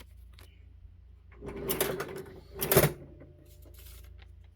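A rasping slide lasting about a second, then a louder thump: a Sharp XE-A202 cash register's cash drawer being slid and banged shut.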